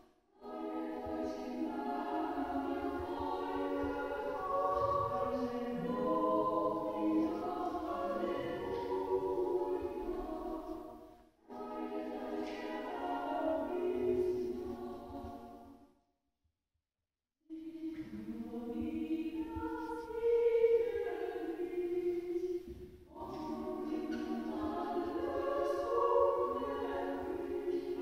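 A group of voices singing a church song together in several phrases, each ending in a short breath pause. About halfway through, the sound drops out completely for about a second and a half.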